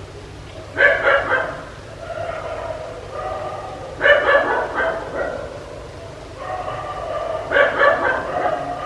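Dog barking in three quick bursts of several barks each, about three seconds apart, with softer drawn-out pitched sounds between the bursts.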